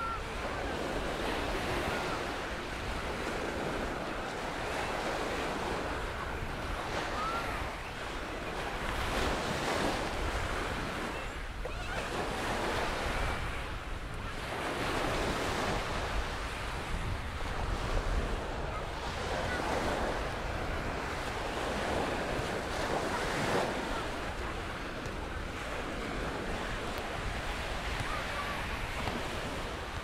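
Mediterranean surf washing onto a sandy beach, the wash swelling and easing every few seconds, with wind buffeting the microphone.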